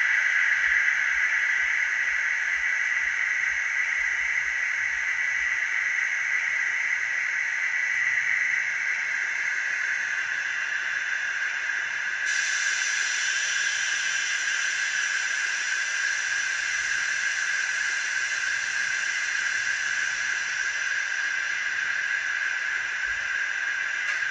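ESU LokSound V5 nano sound decoder in an N gauge Dapol HST power car playing a Paxman Valenta engine recording through a tiny 9 x 25 mm sugar-cube speaker: a steady, high-pitched screaming run with a hissy edge.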